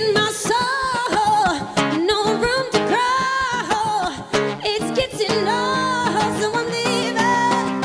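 Acoustic guitar strummed steadily under a voice singing long, wordless notes that slide and waver in pitch.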